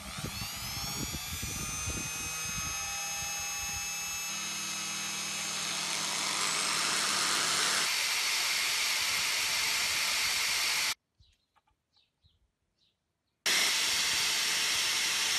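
Rotary tool with a thin cutting disc spinning up with a rising whine, then running steadily, with a lower hum joining about four seconds in. From about eight seconds a harsher grinding noise takes over as the disc grinds down a steel quilting needle to thin it. The sound cuts out abruptly for about two and a half seconds, then the grinding resumes.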